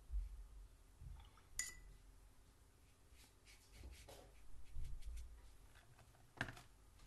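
Small clinks and taps of a paintbrush against glass or ceramic painting ware: one short ringing clink about a second and a half in, a patter of faint ticks and rustles in the middle, and a sharper tap near the end.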